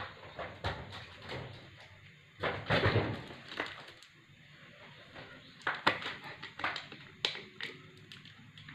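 Knocks, clicks and crinkles from a plastic water bottle being taken out of a refrigerator and handled. The loudest is a longer scraping knock about two and a half seconds in, followed by several sharp clicks.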